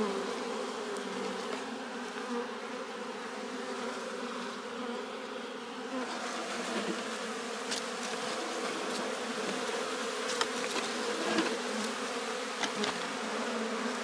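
Honey bees buzzing at a hive entrance: a steady, many-voiced hum, with a few light sharp clicks in the second half.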